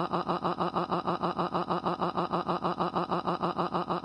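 Looped cartoon crying sound effect: a rapid, evenly repeating sob at a steady pitch, about nine pulses a second.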